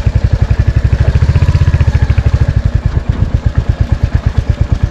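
Royal Enfield Hunter 350's single-cylinder engine running at low revs, its exhaust beats coming as a steady, evenly spaced thump. It grows louder and fuller for about a second and a half, starting about a second in, then settles back.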